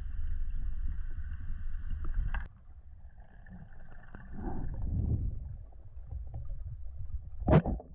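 Underwater camera sound on a night spearfishing dive: a steady low rumble of water moving against the housing and handling noise. A faint high hum stops with a click about two and a half seconds in, and a single sharp, loud knock comes near the end.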